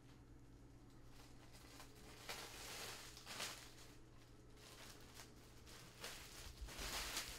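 Faint rustling of a bag being handled and opened, in two spells: about two seconds in and again from about six seconds in.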